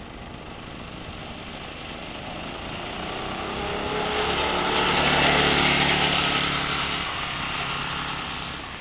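Manco Critter go-kart's 5 hp single-cylinder engine running as the kart drives past, growing louder to a peak about five seconds in and then fading as it moves away.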